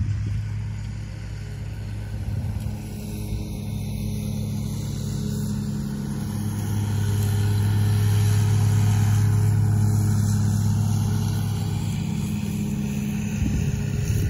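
Engine of a riding lawn mower running at a steady speed with a constant low hum. It grows louder about halfway through and eases off near the end.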